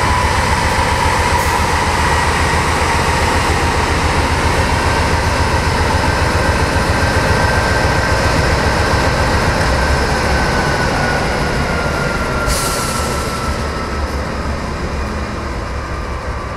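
Double-stack intermodal freight cars rolling past at close range: a steady rumble and rattle of wheels on rail, with a thin wheel squeal that slides slowly lower. A brief hiss comes about twelve and a half seconds in, and the noise eases off near the end.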